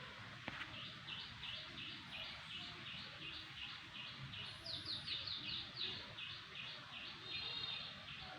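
A songbird calling a long series of short, high chips, about two a second, quickening into a fast run of notes in the middle, over steady background noise.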